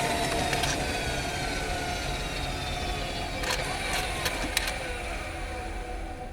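Honda Freed Hybrid drivetrain heard from inside the engine bay while the car slows: several whines slide steadily down in pitch over a low road and drivetrain rumble, fading as speed drops. A few sharp clicks come a little past halfway.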